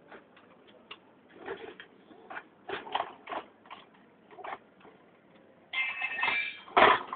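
A small wired toy robot's gear motors running in short, irregular bursts, making clicks and brief whirs, with a denser whir about six seconds in and a louder knock just after.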